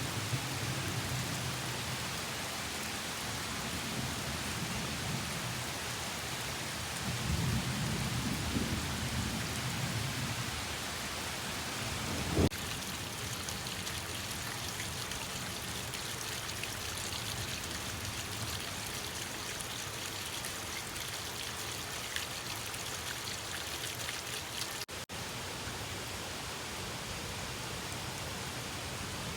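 Steady rain falling, with low rumbles of distant thunder in the first ten seconds. About twelve seconds in there is one sharp, loud thump, the loudest moment, and near the end the sound drops out for a split second.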